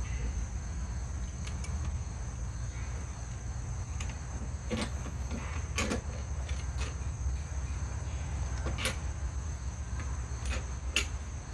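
About half a dozen sharp, short clicks and knocks of a screw, washer and nut being handled and fitted to an exercise bike's front stabilizer tube, over a steady low hum and a constant high-pitched whine.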